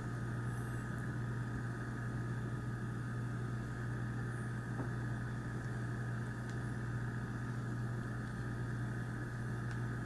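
A steady low hum with a faint hiss behind it, and a few faint clicks of the small metal lock being handled and turned over in the hands.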